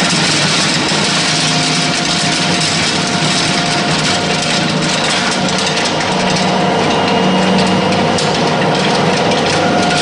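Feed pellet mill driven by a 22 kW Siemens electric motor, running steadily while it presses feed into pellets. It is a loud, even machine noise with a few steady whining tones running through it.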